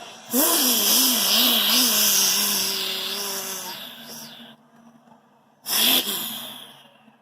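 A person imitating a revving engine with their voice and breath: a loud, hissy burst whose pitch wobbles up and down a few times, then holds steady and fades over about three seconds. A second short burst comes near the end and dies away.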